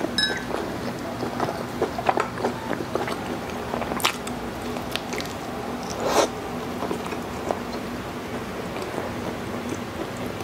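Close-miked chewing of a soft steamed bao bun filled with braised beef pares: many small wet mouth clicks, with a louder bite into the bun about six seconds in.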